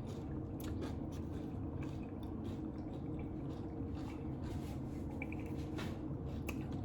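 A person chewing a mouthful of taco close to the microphone, with soft wet mouth clicks scattered over a steady low hum.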